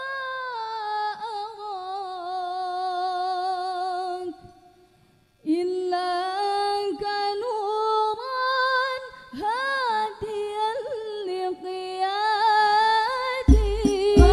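Girls' voices singing an unaccompanied, heavily ornamented vocal line of an Al-Banjari devotional song, with a short break about four seconds in. Near the end the frame drums come in with sharp beats.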